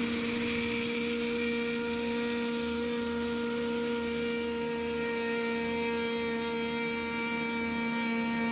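CNC router spindle running with a steady whine as its bit mills the top face of a wooden railroad sleeper flat, with the hiss of the wood being cut.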